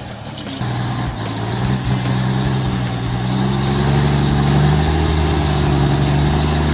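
Logging truck's diesel engine pulling under load, its pitch and loudness rising slowly as it revs.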